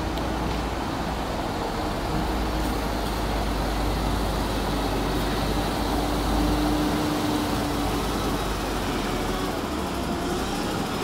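Large truck's engine running steadily, a deep low rumble with a faint hum above it.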